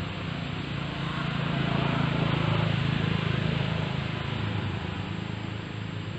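Steady low rumble with a hiss over it, swelling for a couple of seconds in the middle and then easing off.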